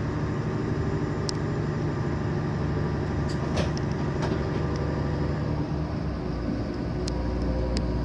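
TransPennine Express Nova 1 bi-mode train running on diesel power: a steady engine hum and rumble with a few light clicks. The low rumble deepens and grows stronger about seven seconds in.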